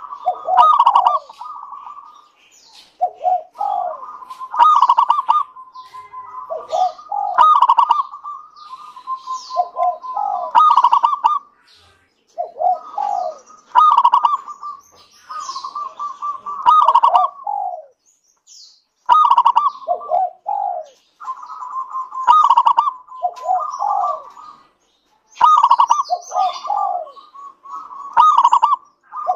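Local zebra dove (perkutut) singing its cooing song: quick strings of staccato coos with falling notes, in phrases repeated about every two to three seconds. The song is used as a lure to get other zebra doves to sing.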